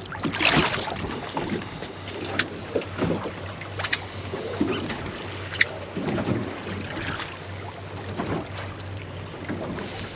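A small thornback ray is lifted out of the water by hand with a splash about half a second in, then handled on the boat: scattered knocks and clicks over a steady low hum and lapping water.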